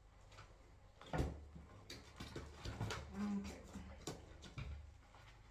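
Scattered light knocks and clicks from the parts of a small sisal-post cat scratcher being handled as its top platform is fitted and screwed on, the loudest knock about a second in.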